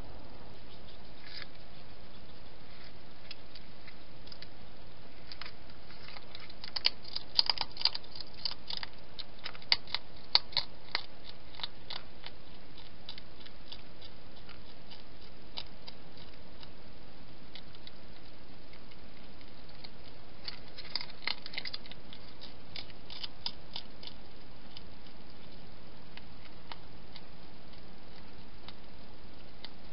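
Wild hedgehog making small sharp clicks and crunches in bursts, the densest about seven to eleven seconds in and again about twenty-one seconds in, over a steady hiss.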